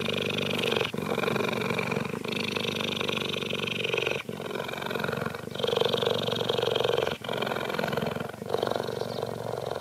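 Cheetah purring at close range: a continuous rumbling purr broken by brief pauses every one to two seconds as it breathes in and out.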